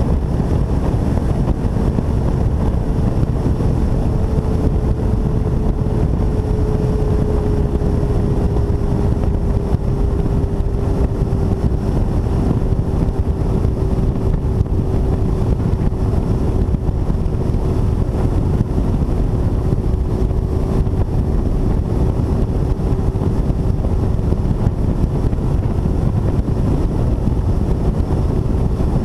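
Bass boat's outboard motor running steadily under way, with wind buffeting the microphone. A thin engine hum sinks slightly in pitch over the first several seconds, then holds steady.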